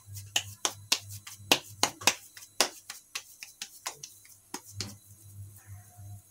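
Wet palms slapping together on a ball of sabudana-potato dough, patting it flat into a tikki; quick sharp pats about three a second that stop about five seconds in.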